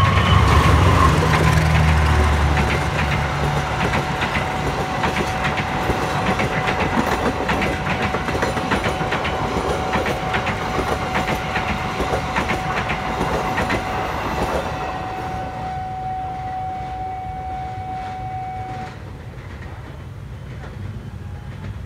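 Locomotive-hauled passenger train passing close by: a loud low rumble as the locomotive goes past at the start, then a long run of clickety-clack as the coaches' wheels strike the rail joints, dying away about 15 seconds in. A steady tone from the level crossing's warning signal sounds beneath it and stops a few seconds before the end.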